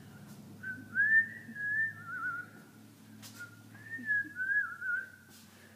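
A person whistling a tune in two short phrases, each a little over a second long, with warbling trills near the end of each.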